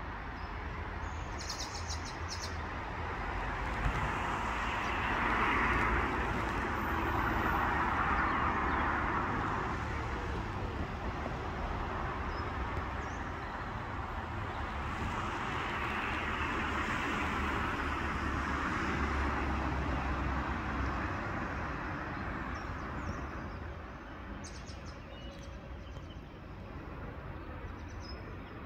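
Outdoor dawn ambience: a rush of distant traffic that swells and fades twice, with a low rumble underneath and a few brief bird chirps.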